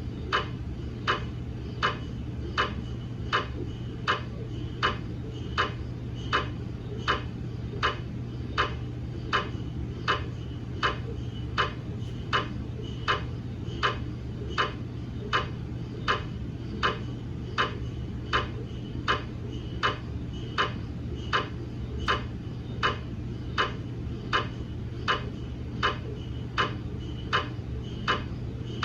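GE MRI scanner ticking in a steady, even rhythm, a little over one sharp click a second, over a constant low hum.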